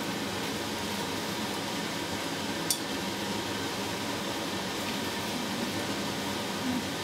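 Steady fan-like hiss in a forge workshop, with a single sharp metallic clink about two and a half seconds in as the pliers and hot iron rod are worked around a steel bar in a vise, and a soft low knock near the end.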